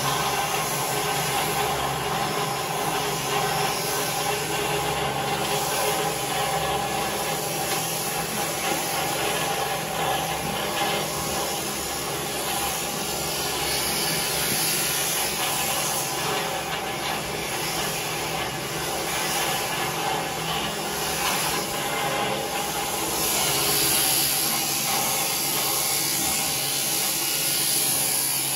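Electric sheep-shearing clippers running steadily as they cut through a sheep's fleece.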